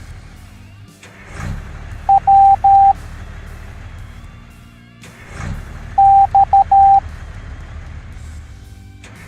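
Morse code letters sounded as a steady high beep in patterns of short and long tones: one group about two seconds in and another about six seconds in. Each group is preceded by a whoosh, over background music.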